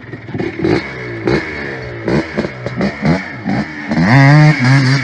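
Predator 212 single-cylinder four-stroke engine on a home-built Power Wheels kart, revving up and down repeatedly, then held at higher revs about four seconds in.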